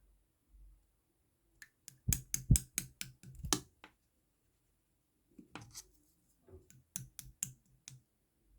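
Clear slime being squeezed and pressed by hand, giving quick runs of sharp clicks and pops: one dense run about two seconds in and another from about five and a half seconds.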